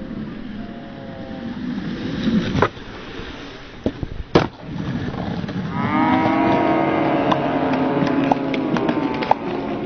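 Skateboard wheels rolling on concrete, with two sharp board clacks about two and a half and four and a half seconds in as a trick is popped and landed. From about six seconds in, a loud, long, drawn-out voice-like call holds for roughly three and a half seconds.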